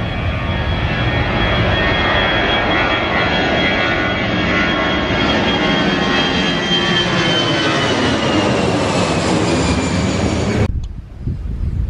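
Twin-engine narrow-body jet airliner at takeoff power climbing out and passing overhead: a loud, steady jet noise with a high engine whine that slowly drops in pitch as it goes by. It cuts off suddenly about a second before the end, leaving faint wind noise.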